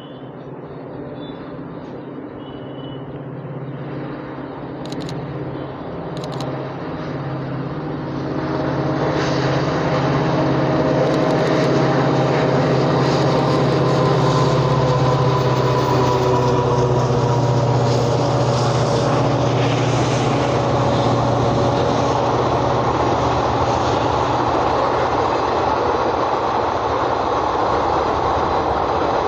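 An EMD WDP4D diesel-electric locomotive approaches and passes at speed hauling a passenger train. Its two-stroke engine's steady drone grows louder over the first ten seconds, then gives way near the end to the rush and rattle of the coaches' wheels on the rails.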